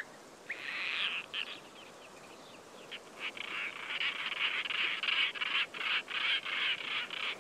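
European roller calling harshly: one short rasping call about half a second in, then a rapid run of repeated rasping calls from about three seconds in.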